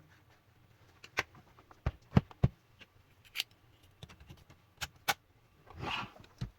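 Scattered sharp plastic clicks and knocks from handling a laptop's casing during repair, with a short rustle near the end.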